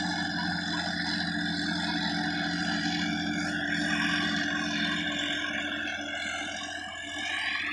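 Sonalika tractor engine running steadily under load while pulling a rotary tiller, with a steady whine over the engine hum.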